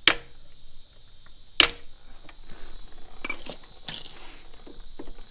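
Two sharp metal taps about a second and a half apart, from the pad-retaining pin being tapped into a motorcycle's rear brake caliper, then a few lighter clicks and clinks of the caliper and brake pads being handled.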